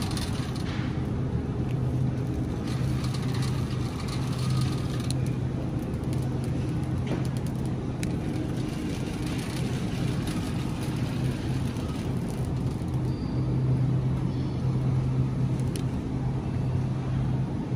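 Shopping cart rolling through a supermarket aisle: a steady low rumble from the wheels on the tiled floor that fades and returns as it moves.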